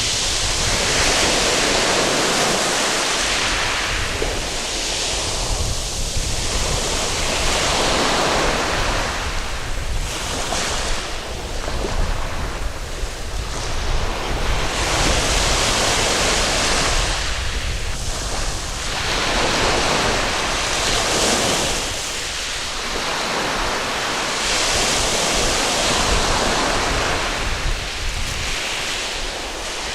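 Waves breaking and washing up a sandy beach, the surf swelling and ebbing every few seconds, with a low wind rumble on the microphone.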